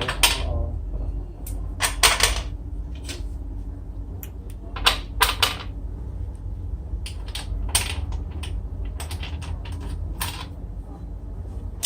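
Irregular clicks, clinks and knocks of metal tools and parts being handled, with a few short louder scrapes, over a steady low hum.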